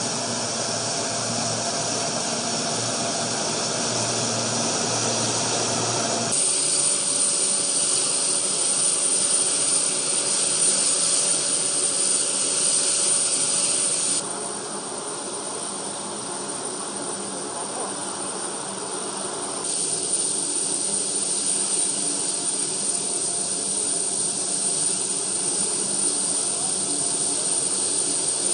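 Engines of a turboprop military cargo plane running steadily, a loud whine over a noise of propeller wash, changing suddenly in level a few times where the footage is cut.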